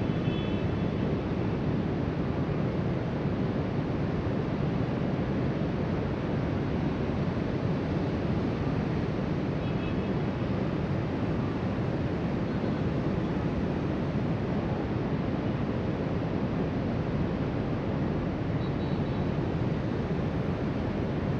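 Steady rush of ocean surf breaking on the shore, mixed with wind on the microphone.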